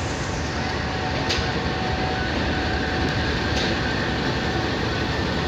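Pakistan Railways GEU-20 diesel-electric locomotive moving slowly past at close range, its engine running with a steady rumble and a faint steady whine. Two sharp clicks come about a second and two and a half seconds apart.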